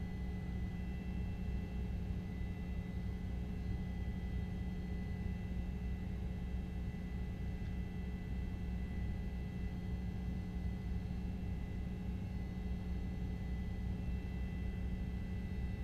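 Steady low rumble with a constant hum and faint high steady whine, like road and engine noise inside a moving chase vehicle.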